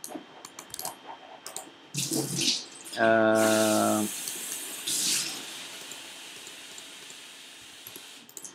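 Computer message-notification sound: a steady buzzing tone lasting about a second, followed by a hiss that fades away over several seconds. Faint clicks come and go throughout.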